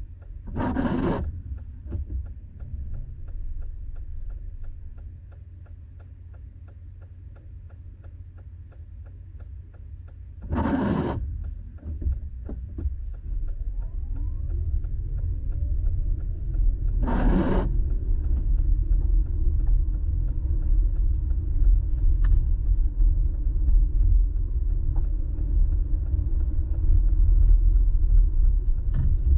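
Inside a car in the rain: a low rumble of engine and tyres on the wet road, quieter while stopped and growing louder from about halfway as the car pulls away. Three brief swishes of the windshield wipers, and faint steady ticking throughout.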